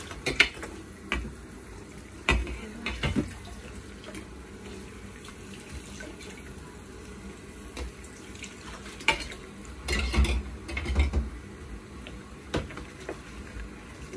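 Kitchen tap running steadily into a sink of soapy dishwater, with a frying pan, pan lid and utensils knocking and clanking against the stainless steel sink now and then as they are washed.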